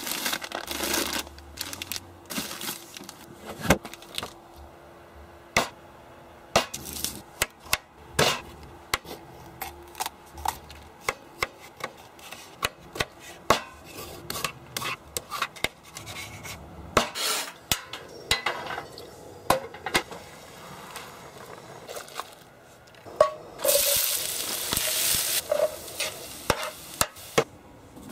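Food-prep handling sounds: a run of sharp clicks and knocks from utensils, plastic containers and bags being worked, with a stretch of hiss-like noise about 24 seconds in.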